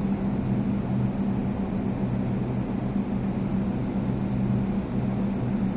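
Steady drone of rooftop HVAC equipment running, mostly the exhaust air fans of the Greenheck dedicated outdoor air system units, with a steady low hum under an even rush of air.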